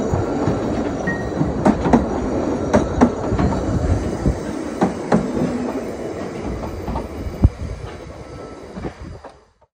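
Narrow-gauge railway carriages rolling past close by, their wheels clattering with irregular sharp knocks on the rails. The sound grows fainter as the last carriage goes by, then cuts off abruptly near the end.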